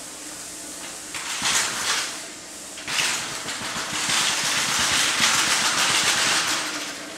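Compressed air hissing from an air tool in a paint shop, in two bursts: a short one about a second in, then a longer one of about four seconds.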